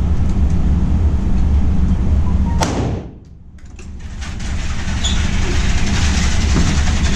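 Steady low rumble of the range, broken about two and a half seconds in by a single sharp gunshot, after which the sound drops away for a second or so before the rumble returns. A short high beep sounds about five seconds in.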